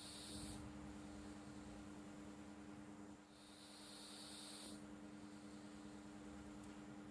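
Sleeping cat snoring softly: a hissy, high-pitched breath lasting about a second and a half, repeating about every four seconds. A steady low hum runs underneath.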